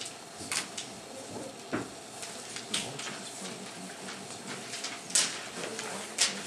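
Scattered rustles, taps and clicks of paper sheets and desks being handled in a classroom, with two sharper knocks near the end.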